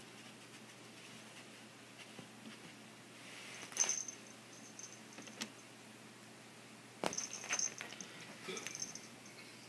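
Short bright jingles of something small, like a little bell, once about four seconds in and several times between seven and nine seconds in, with soft scratches and rustles on couch fabric from a kitten playing with a dangled plush toy.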